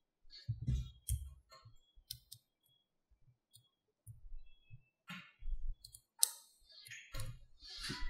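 Small magnetic balls clicking against each other as fingers press and fit them into a block, irregular sharp clicks mixed with soft low knocks of the block on the table.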